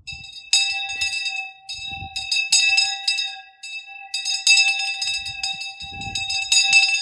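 A bell rung repeatedly, its clapper striking in quick, uneven strokes over one steady ringing tone.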